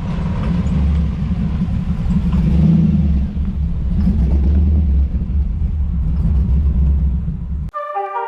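A car engine running with a low rumble, loudest about three seconds in. It cuts off abruptly shortly before the end, where piano music begins.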